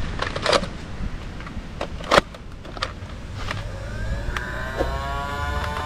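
Battery-powered Nerf dart blaster with its electric motor whirring steadily and a series of sharp clicks as foam darts are fired. Past the middle the motor whine rises in pitch.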